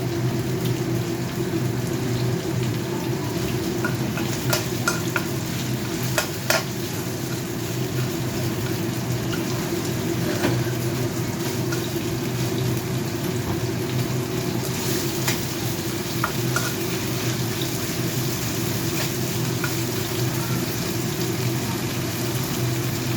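Chicken legs frying in hot oil in a pan: a steady sizzle, with a few sharp clicks about four to seven seconds in.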